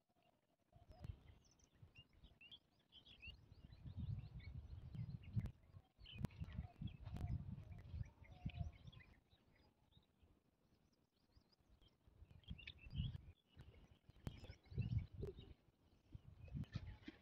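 Faint wind rumbling on the microphone in gusts, with small birds chirping and twittering in the background and a few light clicks.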